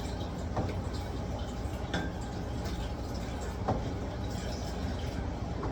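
A few faint clicks and taps of lock hardware and screws being handled while the door handle's screws are lined up, over a steady low hum.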